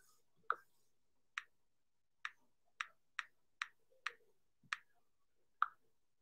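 Nine faint, sharp keystroke clicks at an uneven pace, from typing on an iPad Pro's on-screen glass keyboard.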